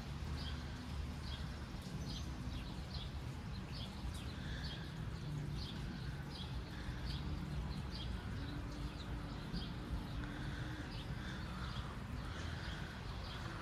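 Small birds chirping, short high notes repeating about twice a second, over a steady low background rumble.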